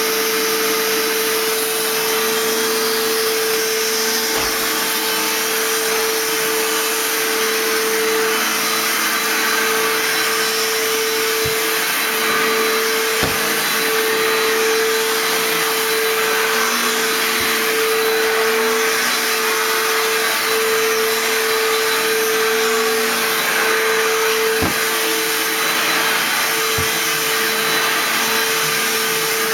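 ProTeam commercial backpack vacuum running steadily while its floor tool is pushed over carpet: a constant motor hum with one held tone, broken by a few faint knocks.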